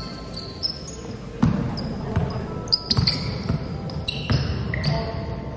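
Basketball being played on a hardwood gym floor: sneakers squeaking in short, high chirps and the ball bouncing a few times, with players' voices in the background.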